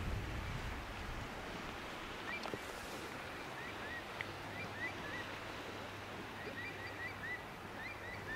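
Wind and sea surf noise over an open coast, with a run of short, high chirps starting about two seconds in and a low steady hum coming in about halfway.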